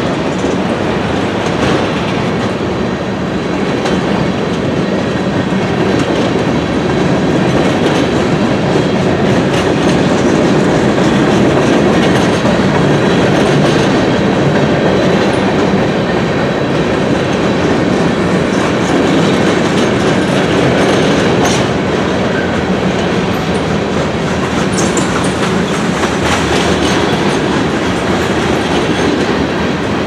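A freight train's cars rolling past at speed: a steady, loud rumble of steel wheels on the rails, swelling a little about a third of the way in.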